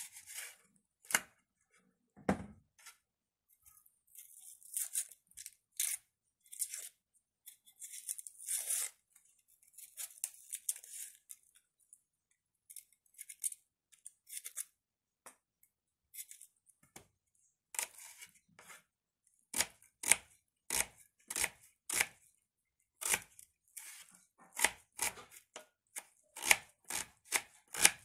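Kitchen knife working an onion on a woven wooden plate: short bouts of hissy scraping as the knife works the onion held in the hand, then from about two-thirds in a steady run of sharp knife taps on the wood, about one or two a second, as the onion is sliced.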